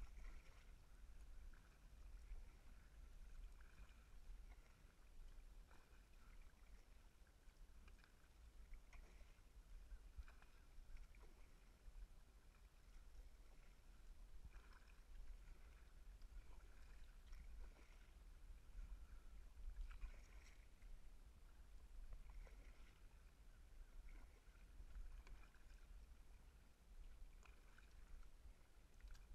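Faint, muffled kayak paddle strokes in calm water every second or two, heard through a GoPro's waterproof housing, over a low steady rumble.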